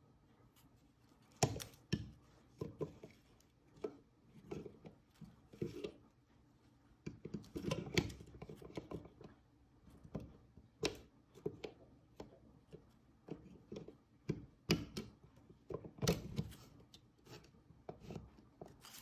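Plastic plug adapter handled and pushed into a round-pin wall socket: a run of irregular clicks, knocks and scrapes of plastic against the socket, a few of them sharp.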